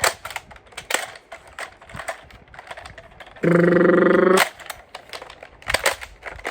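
A run of sharp, irregular clicks and taps, with a loud steady hum-like tone lasting about a second near the middle.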